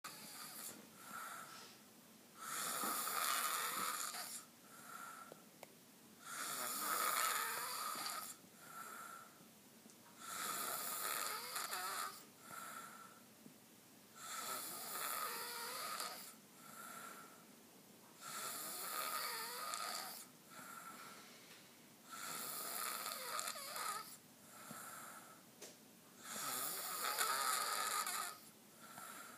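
A man snoring loudly in a steady rhythm, about one breath every four seconds. Each breath is a long rasping snore followed by a shorter, softer wheezy breath.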